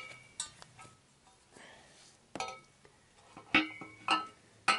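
Metal parts clinking against each other while being fitted to a motorcycle engine: about half a dozen sharp metallic knocks, each with a short ringing tone.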